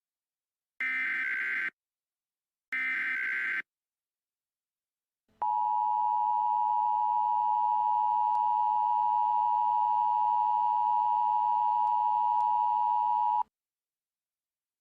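Emergency Alert System header: two short, raspy digital data bursts a second apart (the last two of the three SAME header bursts), then after a short silence the EAS two-tone attention signal sounds steadily for about eight seconds and cuts off sharply.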